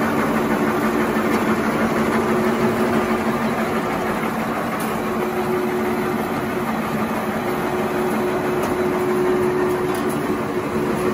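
Automatic glue-lamination napkin tissue production line running, a steady mechanical whir with a low hum and no pauses.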